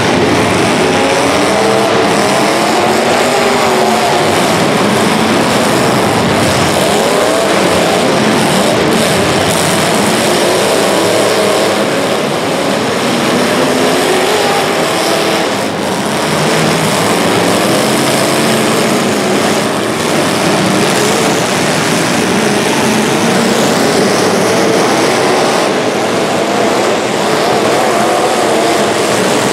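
Several racing engines running at once, their pitches rising and falling independently as the vehicles accelerate and lift around the track.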